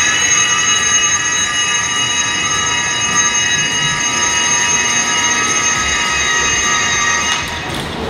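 Ronin Titan Lift powered rope ascender hauling a climber up the rope: its electric motor and gear drive give a loud, steady whine at constant pitch. The whine falls away near the end as the unit stops.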